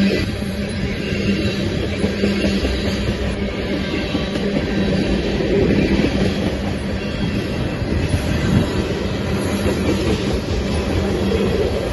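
A train running on its rails: a steady, loud rumble of wheels and cars, with a low steady hum underneath.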